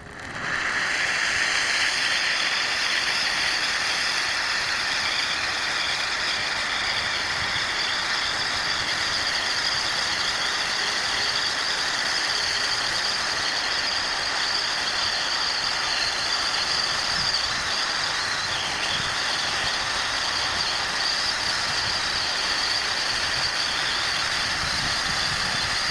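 Pyrotechnic ground fountain burning: a loud, steady hiss of spraying sparks that comes up suddenly as it catches and holds evenly throughout.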